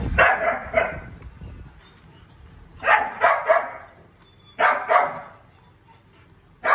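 Short, bark-like animal calls in four groups of two or three: one group at the start, one about three seconds in, one about five seconds in, and one at the end.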